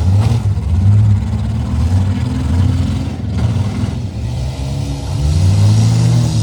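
Demolition derby car engines running hard and revving, their pitch rising and falling, with a short knock just after the start.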